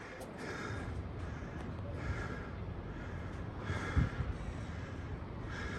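A man breathing heavily, out of breath from climbing the tower's stairs, several breaths about every two seconds over a steady background hiss, with a low thump about four seconds in.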